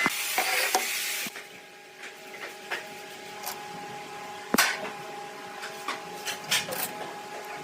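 A woodworking power tool running loudly, cut off about a second in. Then a low steady hum with scattered sharp wooden knocks and taps, one louder knock near the middle.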